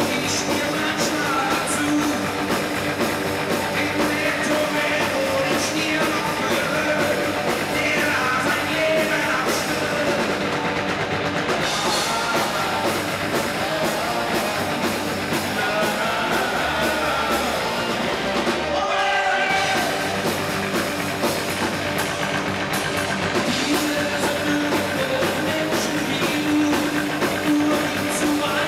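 Rock band playing live: male lead vocals over electric guitar and drum kit.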